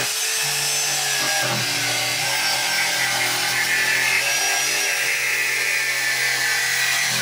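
Electric jigsaw cutting carbon fibre sheet, the motor running steadily under load as the blade rasps through the material, with a couple of brief dips in the motor's pitch.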